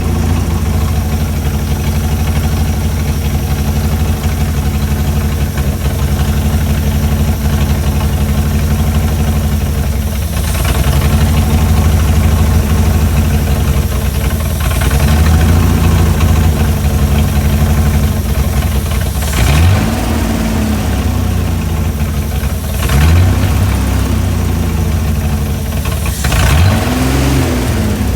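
Chrysler Hemi 265 straight-six engine idling steadily while its idle is being set. It is revved briefly three times in the second half, each rev rising and falling back to idle.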